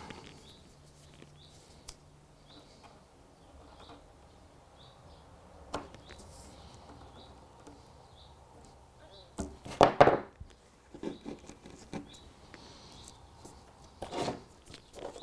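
Small clicks and rubbing of hands and pliers working metal rail joiners onto the ends of model railway track, with a louder clatter of several clicks about ten seconds in and more scattered clicks near the end. Faint, short bird chirps repeat in the background.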